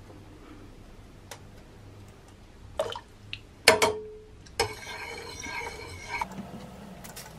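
Metal ladle stirring broth in a stainless steel pot, clinking against the pot a few times; the loudest clink, about halfway through, rings briefly. A second or so of liquid swishing follows.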